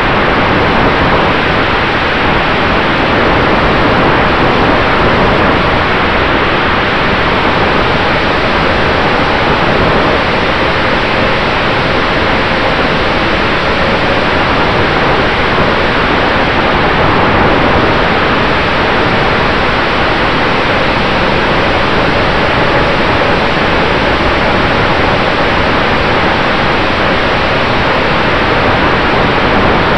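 Loud, steady rushing of the airstream over an onboard camera on an RC warbird in flight, with the faint steady whine of its brushless electric motor and propeller underneath.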